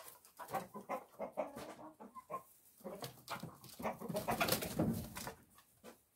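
Chickens clucking in short, repeated calls, with a louder, rougher stretch of calling about four to five seconds in.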